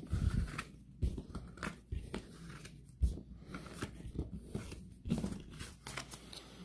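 Baseball cards being picked up off a board and stacked in the hands: irregular rustling with light clicks and taps of card and plastic, the sharpest about three seconds in.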